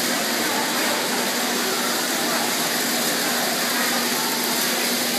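Chris Burden's Metropolis II kinetic sculpture running: a steady whirring rush of many miniature cars speeding around its plastic roadways, with a constant low hum, under the chatter of a gallery crowd.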